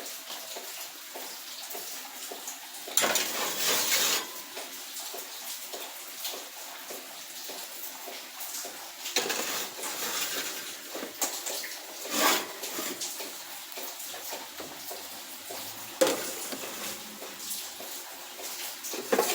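Steady hiss of rain falling, with a few louder noisy surges and clatters every few seconds.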